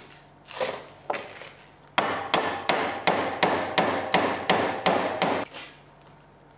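A hammer strikes a thin steel rod clamped in a bench vise, bending it over the vise jaws. After a couple of lighter knocks there is a quick run of about ten blows, roughly three a second, each ringing.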